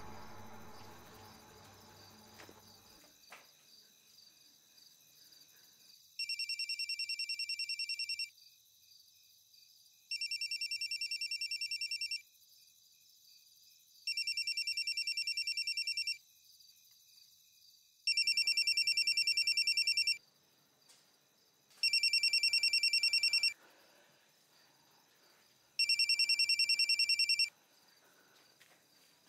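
Mobile phone ringtone ringing unanswered: an electronic trill that repeats in bursts of about two seconds every four seconds, starting about six seconds in, with the last three rings louder. Music fades out at the start.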